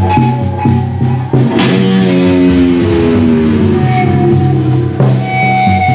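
Rock band jamming live: electric guitar holding long notes that bend and slide in pitch, over a drum kit, with a sharp drum hit about a second in and another near the end.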